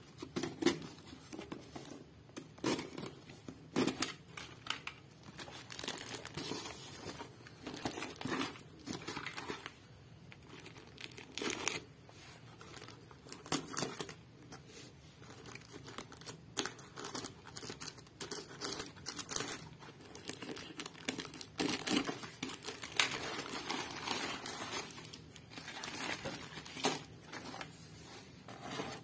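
Cardboard parcel being unpacked by hand: packing tape torn and crumpled paper wrapping rustled and pulled, in irregular bursts of crinkling and tearing, with a few sharper scrapes near the start as the box is cut open.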